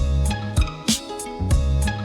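Instrumental hip hop beat with deep kick drum and bass, sharp snare hits and a plucked string melody, with no rapping.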